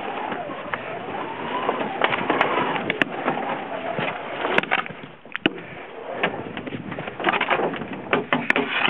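Canoe hull sliding and scraping across lake ice: a steady rough grinding broken by many sharp clicks and knocks, easing off briefly about five seconds in.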